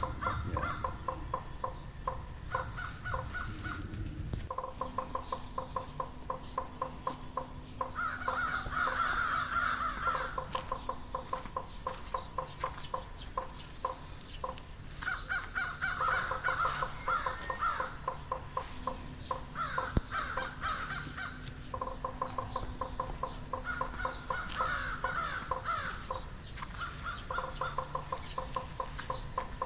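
A frog gripped by a snake calling in rapid pulsed croaks, in trains several seconds long, with higher wavering calls between them.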